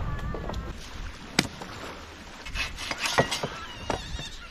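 A saw starting to cut wood, with uneven strokes in the second half. Before it there is a sharp click about a second and a half in, and a brief high wavering sound at the very start.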